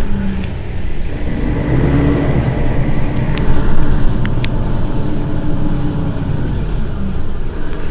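Mercedes-Benz Citaro city bus engine idling at a standstill, a steady low rumble that swells slightly a few seconds in, with a few sharp clicks about halfway through.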